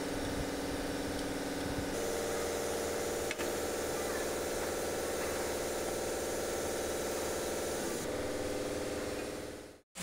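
A workshop machine's motor running with a steady hum over a hiss. Its tone steps to a new pitch about two seconds in and again near the end, with one short click about a third of the way through, then the sound cuts off.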